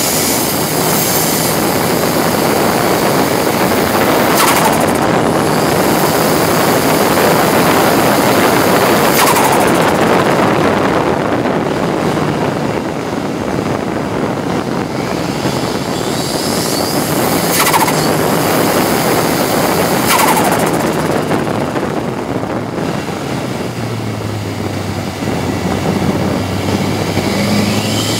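Ford Sierra RS Cosworth race car's turbocharged four-cylinder engine running hard at racing speed, loud in the stripped-out cabin together with road and wind noise, with a few short sharp cracks along the way. Near the end the noise eases into a steadier, lower drone as the car slows.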